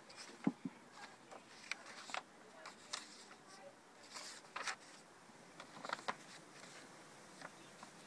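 Pages of a thick handmade collage journal being turned: quiet, irregular rustles and crinkles of paper and card.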